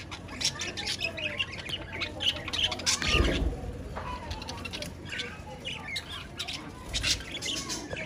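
A flock of budgerigars chattering, a rapid run of harsh squawks and chirps. A brief low rumble comes about three seconds in.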